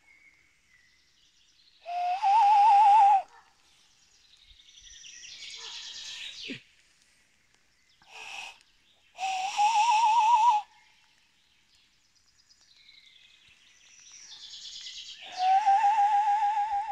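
An animal call with a wavering, slightly rising pitch, given three times about six to seven seconds apart, each call lasting about a second and a half. Fainter rising hissy sounds come between the calls.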